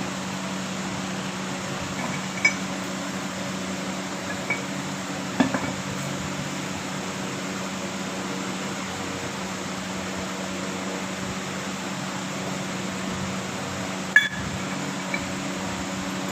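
Steady electric motor hum, like a workshop fan, with a handful of short metallic clinks of tools and parts being handled, the sharpest about 14 seconds in.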